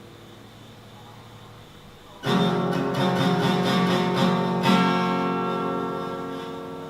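Background music: a faint fading tail, then about two seconds in, acoustic guitar strumming comes in and rings on, slowly fading.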